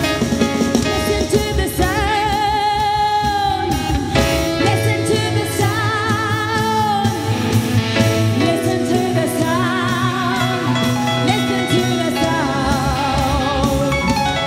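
A live worship band playing, with guitar, drum kit and a voice singing held, wavering notes over it.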